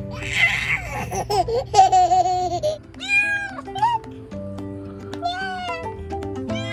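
A baby laughing, then a young kitten meowing several times in short, high mews, over light background music.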